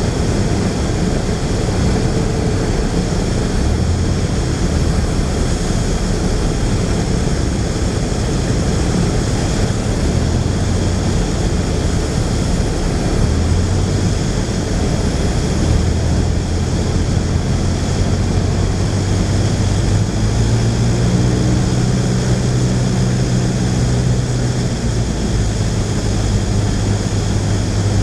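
Cessna 172's piston engine and propeller running steadily, heard from inside the cabin with a steady rush of air, the engine note shifting in pitch a few times on approach to land.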